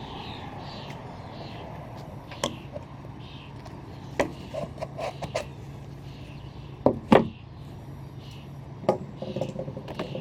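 Scattered knocks and clicks of parts and tools being handled while working on a push reel lawn mower, the loudest a pair of sharp knocks about seven seconds in, over a steady low hum.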